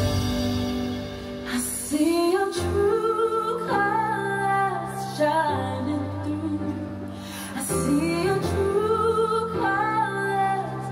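Show soundtrack music: a sung melody sliding between notes over sustained held chords.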